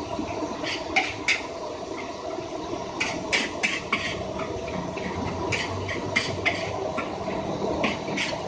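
Metal spatula clanking and scraping against a wok as fried rice is stir-fried: irregular sharp knocks, several a second at times, over a steady sizzling hiss.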